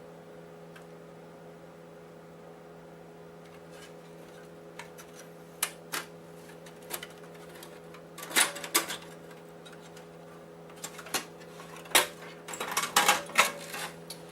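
Clinking and clattering of parts being handled while a PlayStation 4 console is taken apart. Scattered clicks build into two short bursts of rattling, about eight and thirteen seconds in, over a steady background hum.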